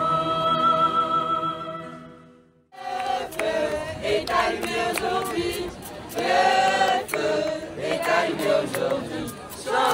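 A congregation singing a slow, sustained Taizé chant in a large hall, fading out. From about three seconds in, a crowd of young people sings and chants together with rhythmic handclaps.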